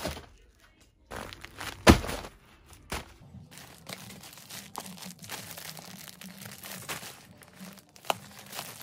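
Plastic and bubble mailer envelopes crinkling and rustling as they are handled, with one sudden loud crackle about two seconds in.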